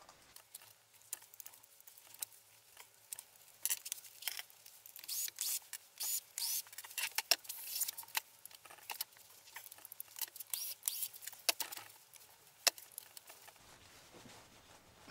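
Light metal clicks, taps and scrapes of small hand tools and screws being handled, an irregular run that is densest in the middle, with one sharp click near the end.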